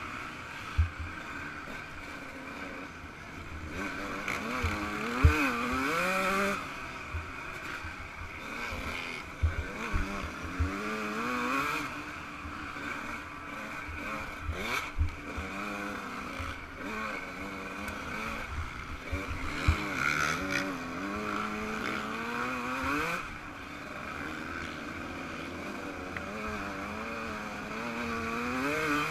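Yamaha YZ125 125cc two-stroke single-cylinder engine being ridden hard, revving up and falling back again and again as the rider works the throttle and gears. Scattered low thumps and a steady hiss run under it.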